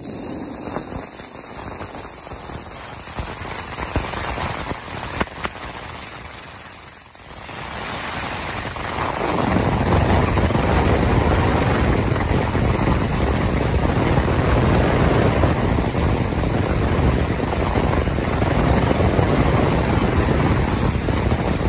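Morantz M-115 ultrasonic cleaning tank running: a steady, loud hiss of cavitation in the cleaning solution. It grows much louder and fuller about nine seconds in.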